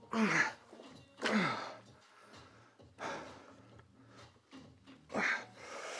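A man's strained grunts and hard exhalations during a heavy set of dumbbell curls: three short grunts that drop in pitch, at the start, about a second in and near the end, with a forceful breath out in between.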